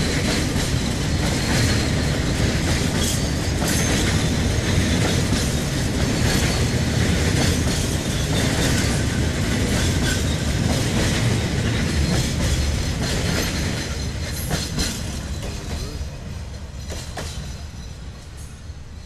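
Freight train of oil tank wagons rolling past close by: a steady rumble and clatter of wheels over the rail joints. It fades from about two-thirds of the way in as the end of the train goes by, with a few sharp clanks near the end.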